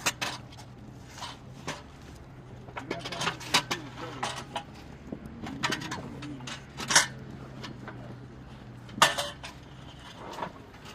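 Irregular sharp clinks and knocks of hard objects, about a dozen, the loudest about seven and nine seconds in, over a steady low hum.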